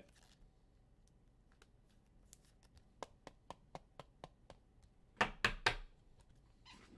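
Trading cards being handled on a table: a run of light clicks, about four a second, then three louder taps about five seconds in.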